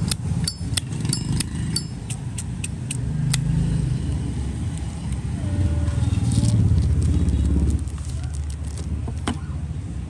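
Brass Zippo lighter's hinged lid clicking open and shut, about three clicks a second for the first few seconds; its natural, unadjusted lid sound. A louder low rumble then fills the middle and cuts off abruptly about eight seconds in, and one more click comes near the end.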